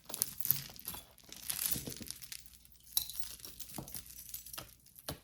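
Costume jewelry clicking and clinking as pieces are handled, with a bag crinkling.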